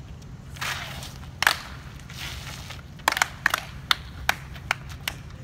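Gumboot-dance claps and slaps by a group of dancers: a scuff and a single sharp slap early on, then from about three seconds in a quick flurry of claps settling into a steady beat of about two and a half claps a second.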